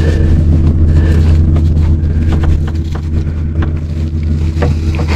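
Small electric extraction pump running with a steady low hum and overtones, drawing coolant from the radiator, with a few light clicks of handling over it.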